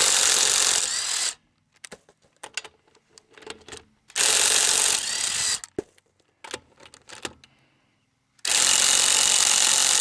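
Ryobi half-inch impact wrench hammering lug nuts loose, in three bursts of a second or two each, with small clicks between.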